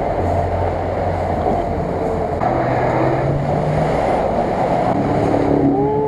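Off-road vehicle engines running under load while driving through deep muddy water, with steady splashing and sloshing of water. About two and a half seconds in the engine note changes as a second vehicle, a pickup, pushes through the water throwing spray.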